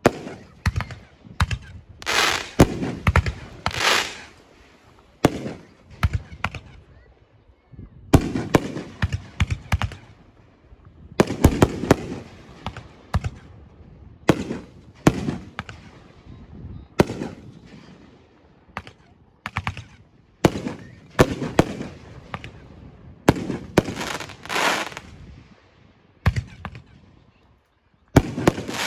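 Aerial fireworks going off one after another: sharp bangs every second or two, each trailing off in a rolling echo, with some clusters of rapid pops.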